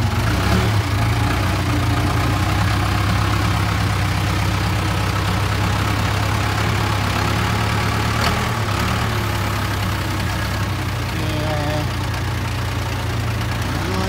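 Case 580K backhoe loader's four-cylinder diesel engine running steadily at idle, with a brief click about eight seconds in.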